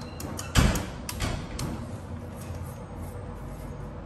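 Handling noise from work on an electric scooter's rear wheel: a heavy thump about half a second in, then a few sharp clicks and knocks of a tool against the scooter's parts.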